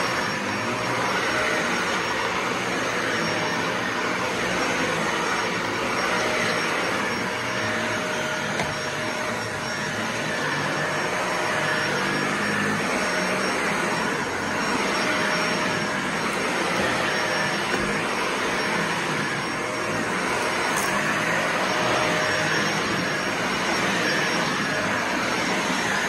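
Dyson Ball Animal 2 upright vacuum cleaner running steadily as it is pushed back and forth over a rug: an even motor and suction noise with a faint high whine, swelling slightly with each stroke.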